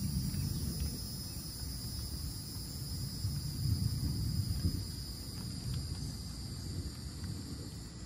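Insects, crickets or similar, droning steadily in several high, even tones, over a low rumble that swells and fades about four seconds in.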